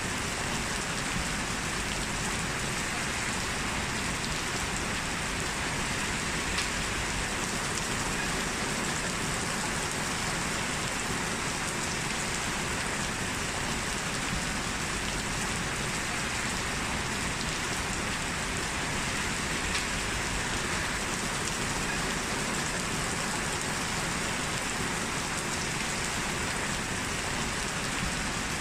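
Steady, even rain falling and pattering on surfaces, with a few faint drop ticks.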